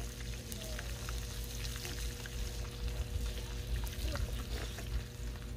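Fish frying in oil in a pan over an open fire: a continuous sizzle with many small crackles and pops, over a steady low rumble.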